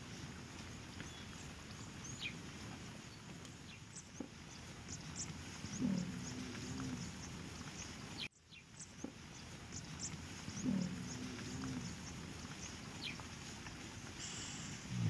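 A leopard growling low, three short growls about five seconds apart, over a faint steady hiss with scattered ticking clicks.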